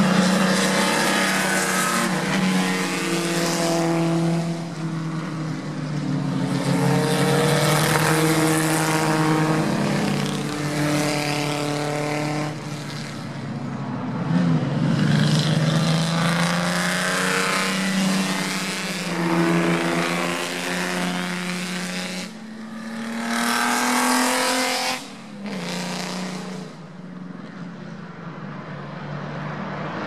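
Historic Grand Prix racing cars running past one after another, their engines climbing in pitch as they accelerate and dropping back at each gear change. The engine sound falls away near the end.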